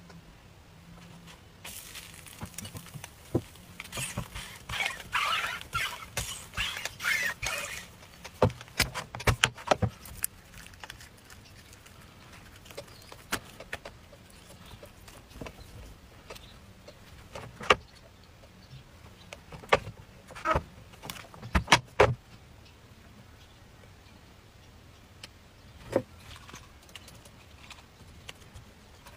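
Handling sounds from making thin pancakes on an electric crepe pan: several seconds of crackly rustling, then scattered sharp clicks and taps.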